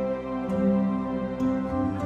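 Background music: soft, slow new-age style instrumental with sustained tones, the harmony shifting about half a second in and again near the end.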